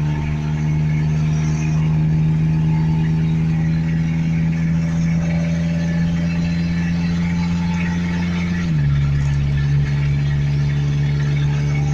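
Vehicle engine idling steadily, its pitch dropping a step about three-quarters of the way through and then holding at the lower speed.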